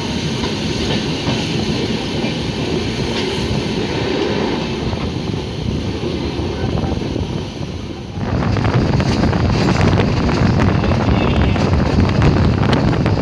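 Running noise of a moving passenger express train heard from an open coach door: wheels on the rails and rushing air buffeting the microphone. About eight seconds in it turns abruptly louder, with heavier wind rumble.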